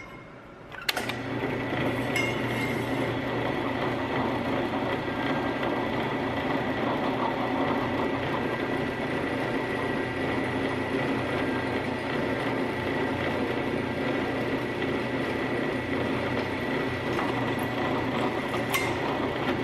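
JET drill press running, its bit drilling a hole through a metal L bracket. It starts about a second in and runs steadily, with a constant high whine over a low hum.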